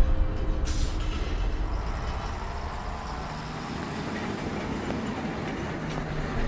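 Train running on rails: a steady rumble that eases off over the first few seconds, with a brief hiss about a second in.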